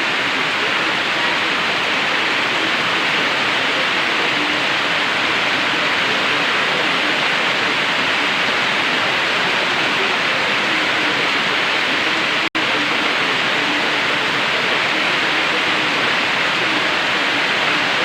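Heavy typhoon rain pouring steadily, a dense even hiss. The sound drops out for a split second about twelve seconds in.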